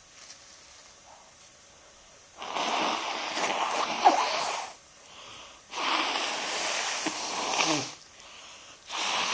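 A person blowing their nose hard: three long, noisy blows of about two seconds each, the first with a sharp burst in the middle and the third starting near the end.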